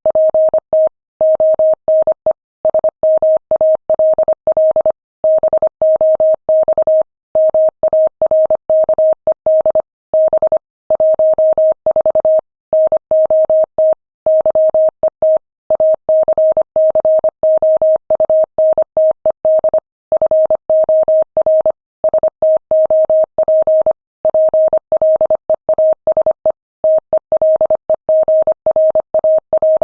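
Morse code sent at 25 words per minute as a single steady tone of about 600 Hz, keyed on and off in quick dots and dashes, with longer gaps between words.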